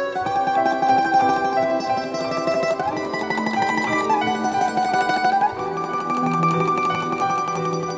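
Background music of plucked strings: fast, rapidly repeated notes under a slower held melody.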